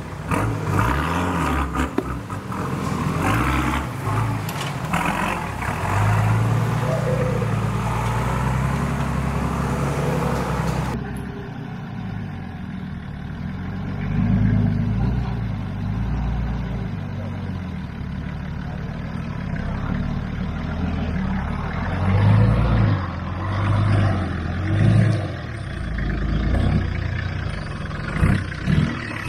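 Four-wheel-drive engine running at low speed under load, revving up in repeated swells as the vehicle crawls over an obstacle.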